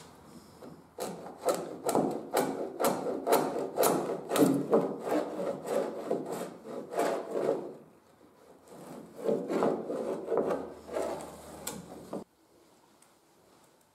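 Small metal hand plane shaving wood in quick short strokes, about two or three a second, a crisp scraping on each pass. The strokes pause about eight seconds in, resume, and cut off suddenly near the end.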